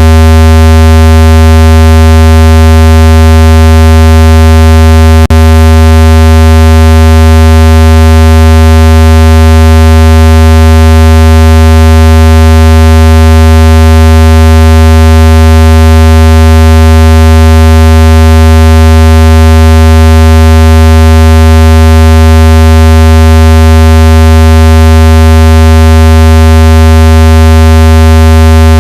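Speaker-cleaning tone: a steady, very loud, low buzzing synthesized tone, rich in overtones, played to shake water and dust out of a phone speaker. A brief click about five seconds in.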